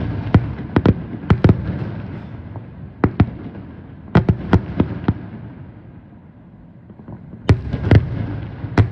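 Fireworks display: aerial shells bursting in quick volleys of sharp bangs over a low rumble. The bangs thin out for about two seconds past the middle, then another volley comes near the end.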